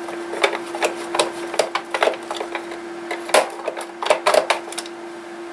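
Screwdriver backing screws out of a boombox's case: a run of irregular small clicks and creaks, with a few sharper clicks a little past the middle.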